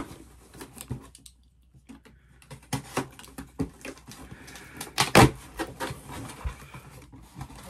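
Cardboard shipping box being slit open with a small knife and its flaps pulled up: scratchy cutting through the tape with scattered clicks and taps, and one louder knock about five seconds in.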